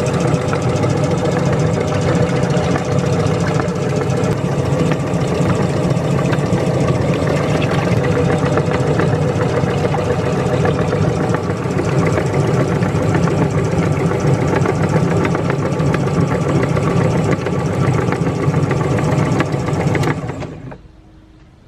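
Meat grinder motor running steadily under load, then switching off and dying away about twenty seconds in.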